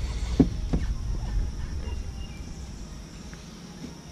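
Steady high-pitched buzzing of insects. A low rumble fills the first second and a half and then fades, and two brief short sounds come early.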